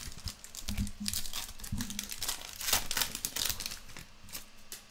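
Plastic foil wrapper of a Topps Finest soccer card pack being torn open and crinkled by hand: a run of crackles, busiest in the middle and thinning toward the end.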